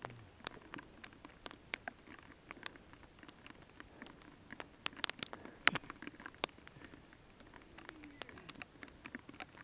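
Mountain bike on a rough trail: irregular small clicks, crackles and rattles from the tyres and the bike, with a few sharper clacks around five to six and a half seconds in.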